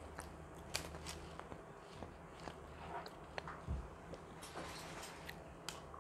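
Close-miked chewing of a mouthful of chicken sandwich: scattered soft wet smacks and clicks, with a low bump a little past halfway.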